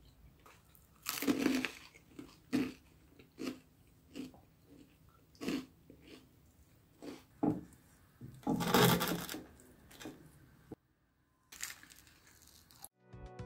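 Crisp toasted bread topped with melted cheese being bitten and chewed: a string of separate crunches, the loudest and longest about nine seconds in.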